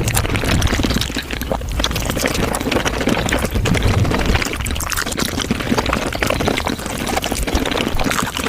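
Wet eating sounds of raw shrimp being chewed and slurped, sped up about fivefold into a dense, continuous run of smacks and clicks.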